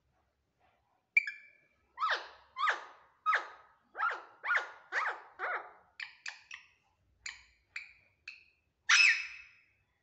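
Caged green parakeet calling: a sharp call about a second in, then a run of loud falling squawks about two a second, a few shorter chirps, and one long loud call near the end.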